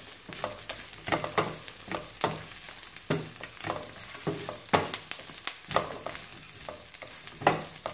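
Potato chips, onions and vegetables sizzling in a frying pan while a utensil stirs and shapes them, knocking and scraping against the pan in irregular clicks a few times a second.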